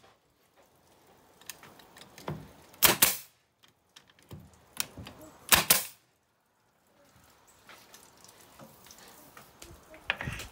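A nail gun firing twice into pine boards, about three and five and a half seconds in, each a sharp crack, with a few lighter clicks and knocks of the tool against the wood around them.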